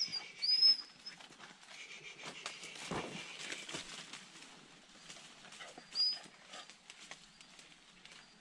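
Hunting dogs and a digger working at an agouti's burrow: rustling and scratching in soil and leaf litter, with a dull knock about three seconds in. Short high chirps near the start.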